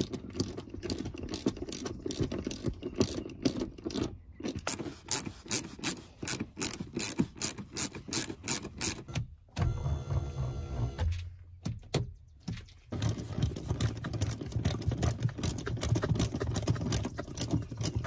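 Ratchet wrench with a 14 mm socket clicking quickly and evenly as the seat mounting bolts are run in. The clicking comes in long runs, with a break of a few seconds around the middle.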